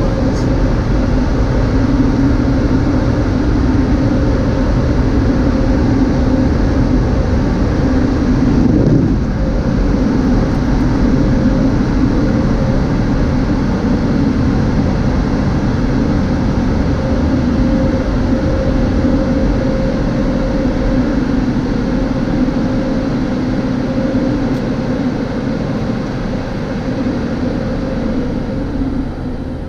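MacNeil car wash blower dryers running: a loud, steady roar with a humming tone, heard from a car leaving the tunnel exit, growing fainter over the last several seconds.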